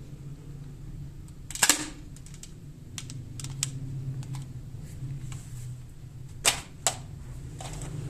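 Toy cap-style pistol being snapped and clicked in the hand: a sharp snap about a second and a half in and two more near the end, with lighter mechanism clicks in between.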